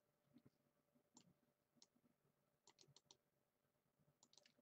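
Faint computer mouse clicks in near silence: single clicks, then a quick run of four about three seconds in, and a few more near the end.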